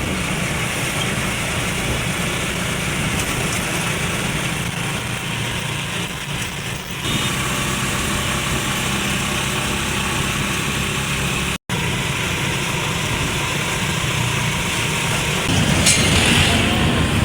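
Steady engine-like hum with a hiss over it, like a running motor or traffic, breaking off for an instant about two-thirds of the way through.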